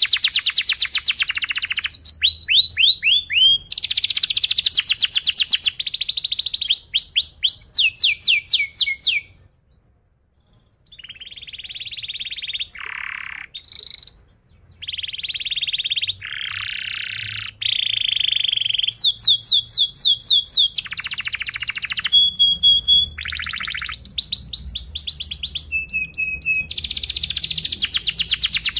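Domestic canary singing a long, loud song of rapid rolls and fast-repeated downward-sweeping chirps, with a short break about a third of the way in.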